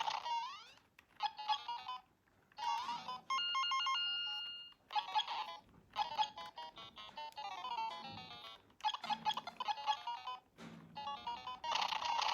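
A bright electronic ringtone-like melody of quick beeping notes in short phrases, with brief pauses between them and a few held steady tones partway through.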